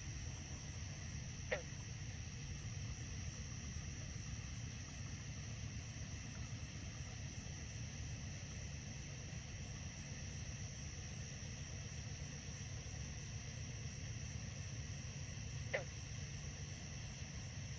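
Night insect chorus of crickets: a steady high-pitched trilling over a low steady hum. Twice, about a second and a half in and again near the end, a brief falling squeak cuts through.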